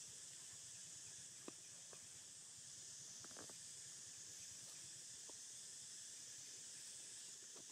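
Near silence: a steady faint high hiss, with a few soft clicks or rustles scattered through it.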